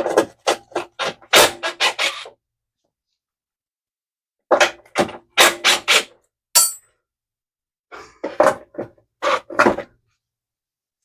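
Hand wrench working the 3/8-inch bolts on a lawn mower's drive cover: quick runs of sharp metallic clicks and knocks, in three bursts.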